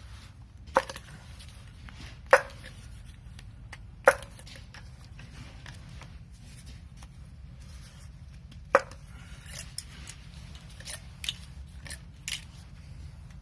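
Sharp knocks and clicks, four loud ones spaced a second or more apart, then a run of lighter ones near the end, over a steady low hum.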